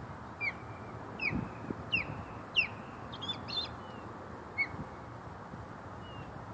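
Osprey calling from its perch: a series of short, high whistled notes, about one every half second to second, thinning out after the first few seconds.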